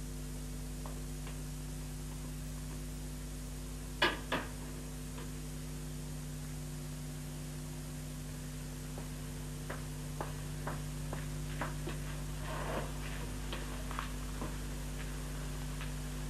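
Steady mains hum on the recording, with two sharp knocks about four seconds in, a door being shut and latched. Later comes a run of light clicks and taps as a wooden dresser drawer is opened and rummaged through.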